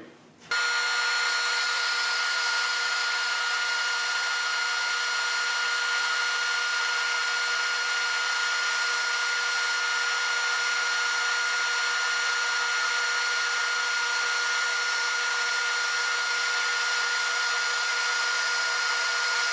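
Band saw fitted with a 14 teeth-per-inch blade, running steadily with a dust-collection vacuum while it slices a thin sheet off a block of acrylic plastic. It starts abruptly about half a second in and holds an even, steady sound with a constant high tone.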